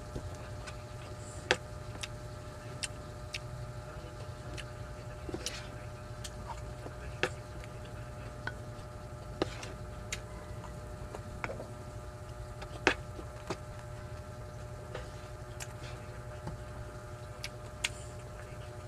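Close-up eating sounds: wet chewing and lip-smacking clicks at irregular intervals, with now and then a sharper click or tap, over a steady low hum.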